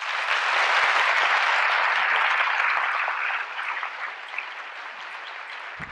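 Audience applauding. The clapping is loudest over the first few seconds, then dies down gradually.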